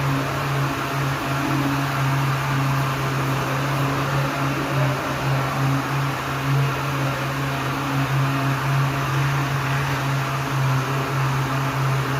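A motor running with a steady, unbroken hum and no change in speed.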